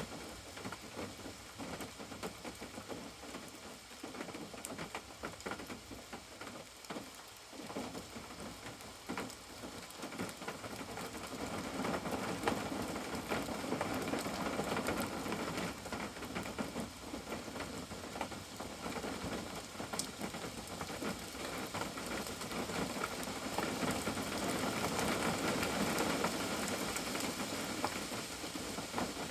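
Rain falling, heard from a caravan: a dense hiss of many small drops that grows heavier about a third of the way in and again near the end.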